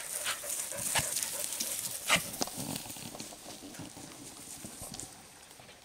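Rustling, crunching footsteps through dry grass and forest litter, with a few sharper knocks among them, growing fainter toward the end.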